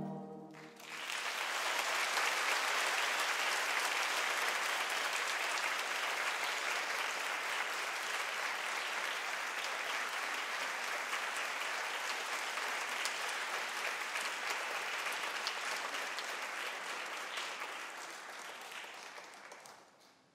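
Theatre audience applauding as the orchestral music ends. The applause starts about a second in, holds steady, and fades away near the end.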